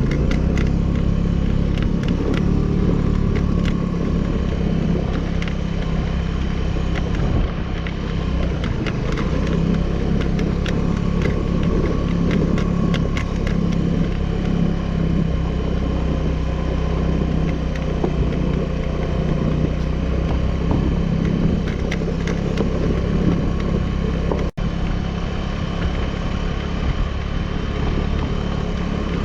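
Suzuki Burgman 200 scooter's single-cylinder engine running steadily under way, with road noise, while climbing a mountain road. The sound cuts out for an instant near the end.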